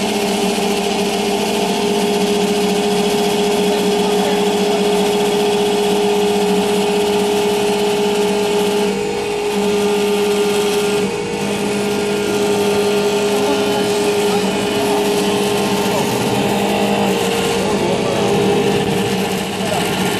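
CNC wood copy lathe running, its cutters turning a wooden spindle: a steady motor hum with two held tones under the rushing noise of wood being cut. The noise eases briefly a few times.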